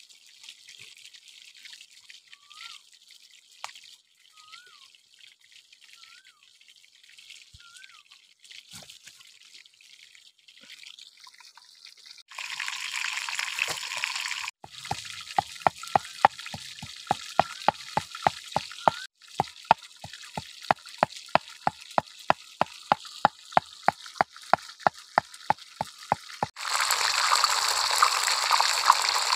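A pestle pounding red chillies in a mortar, a steady run of sharp knocks at about three a second, then fish frying in hot oil in a wok, a loud steady sizzle near the end. Faint short bird chirps come before the pounding.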